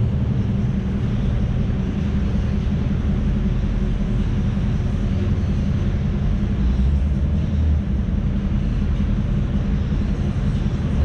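Car engine and exhaust droning steadily at a constant speed, heard from inside the cabin, with a deep even hum and road noise.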